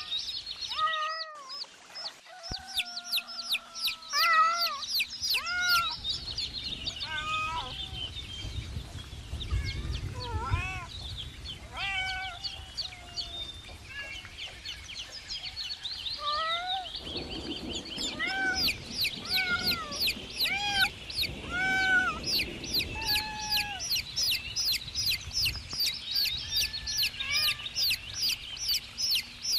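Chicks peeping: a steady stream of rapid, high-pitched, falling peeps, with lower, slower clucking calls mixed in.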